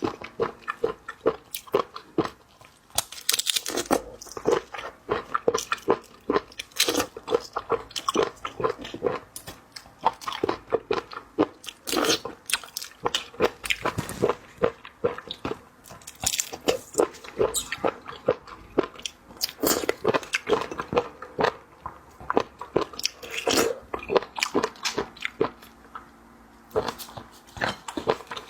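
Close-miked eating: biting, crunching and chewing, a rapid crackle of many small crunches that runs on with only brief pauses.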